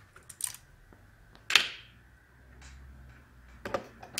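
Handling noises from working inside an opened laptop: a few short clicks and knocks of small parts and a screwdriver, the loudest about one and a half seconds in and a small cluster near the end.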